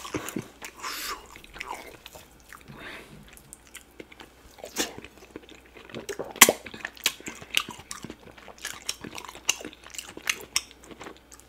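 Close-up eating sounds by hand: wet chewing and lip smacking on soft meat in soup, with many short wet clicks at an irregular pace. The loudest click comes a little past halfway. Soup is sucked off the fingers.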